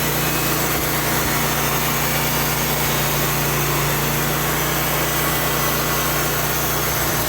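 An engine or motor-driven machine running steadily, with a constant low hum and no change in speed.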